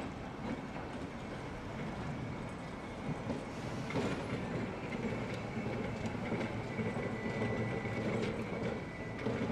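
Tosaden streetcar running on its rails, getting louder about four seconds in.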